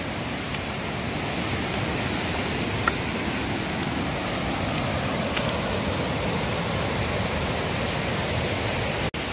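Kundalika river rushing over rocky rapids, a steady, even sound of running water, with a split-second drop-out near the end.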